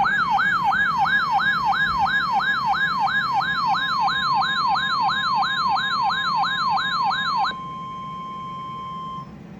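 A RadioShack 12-519 weather radio's alert siren sweeps up and down about three times a second over NOAA Weather Radio's steady 1050 Hz warning alarm tone, the signal that a warning broadcast follows. The siren stops about seven and a half seconds in, and the steady tone carries on alone until it cuts off shortly before the end.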